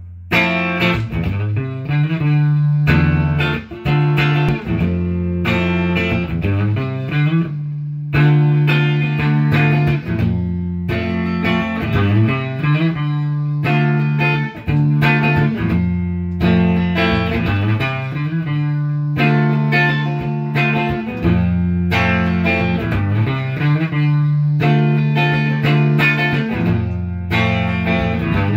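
1993 Fender Telecaster electric guitar played through a 1975 Fender Twin Reverb amplifier: chords and riffs rung out in phrases of a few seconds, with brief gaps between them.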